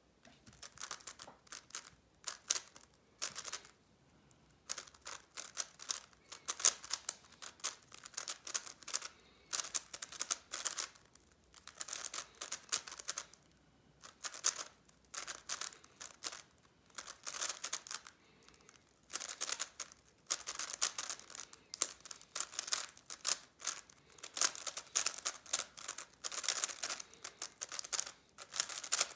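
YJ YuHu V2 M megaminx being turned fast in a speedsolve: rattling plastic clicks from the layer turns, in bursts of a second or two broken by short pauses.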